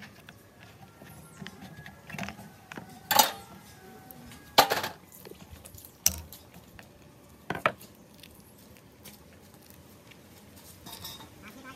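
Metal screwdriver prying at the plastic handle casing of a chop saw: about five separate sharp clicks and knocks, the loudest about four and a half seconds in.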